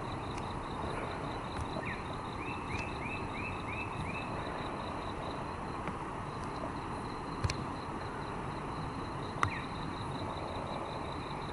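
Outdoor dawn ambience: a steady hiss with a fast, high-pitched ticking pulse throughout. About two seconds in, a bird gives a quick run of six short falling chirps, and later two sharp clicks stand out as the loudest sounds.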